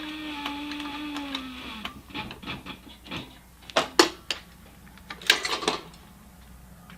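A machine motor hum that slides down in pitch and stops about two seconds in, followed by scattered clicks and knocks of handling, the sharpest about four and five seconds in.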